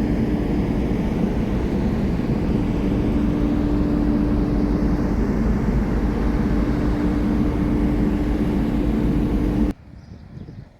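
A vehicle running, a steady engine and road drone with one held tone over a low rumble. It cuts off sharply near the end.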